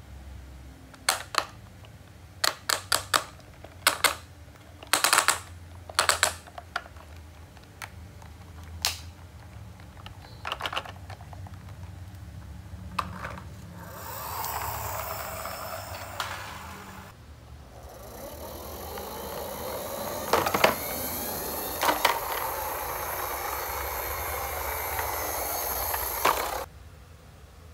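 Plastic toy excavator trucks clicking and knocking as they are handled, a string of sharp clicks through the first half. About halfway in, hard plastic wheels start rolling across a hard floor with a steady rattle and a few knocks, which cuts off suddenly near the end.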